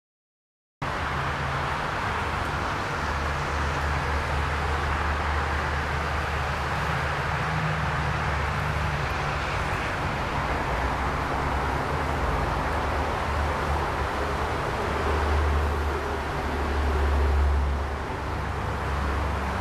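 Steady outdoor background noise, a low rumble under an even hiss, starting abruptly about a second in and swelling briefly near the end.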